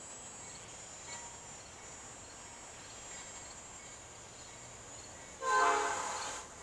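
Distant train horn sounding one blast of about a second near the end, over a faint steady background with a thin high hiss.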